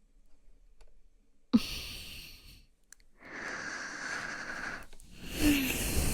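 A woman breathing close to the microphone: a sudden breath about a second and a half in, a long breathy exhale, then a louder breath near the end with a brief voiced sigh.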